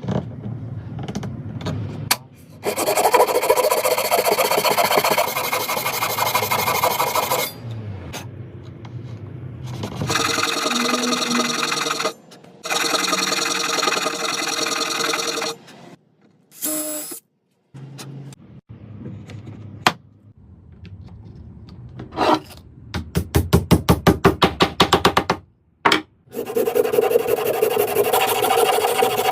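Wood being worked with tools in a series of short takes that start and stop abruptly: rasping and scraping on wood, with a run of quick regular strokes, about five a second, late on.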